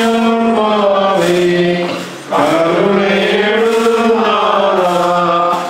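Processional hymn of the Malankara Orthodox Church chanted in long, drawn-out phrases, breaking briefly about two seconds in and again at the end.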